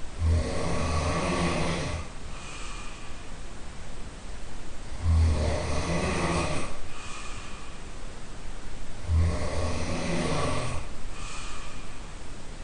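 A man snoring loudly, heard from the room next door: three long, rattling snores about four seconds apart, each lasting around two seconds, with quieter breaths between them.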